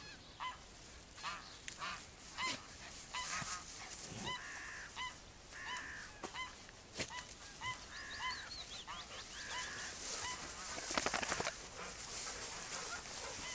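Goose honking over and over in short calls, some coming in quick pairs. About eleven seconds in there is a brief burst of rapid clicking.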